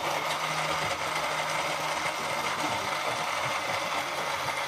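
Electric countertop blender running steadily, its motor grinding soaked almonds, cashews and whole spices with a little water into a coarse paste.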